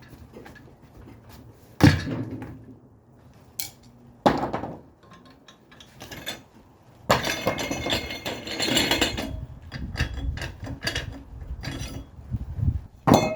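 Metal tire spoons clanking and scraping against a wheel rim as the last of a tire's bead is levered on by hand: a sharp clank about two seconds in, another about four seconds in, a stretch of rapid scraping and clinking from about seven to ten seconds, and a last clank at the end.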